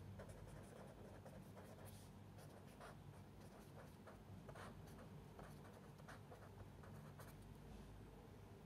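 Pen writing on paper: faint, irregular scratching strokes as words are written out by hand, over a faint steady low hum.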